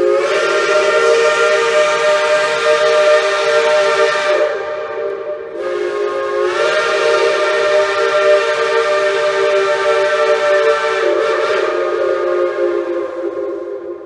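Shay geared steam locomotive's multi-note chime whistle blowing two long blasts, the second longer and tailing off near the end. Two long blasts are the signal to release brakes and proceed.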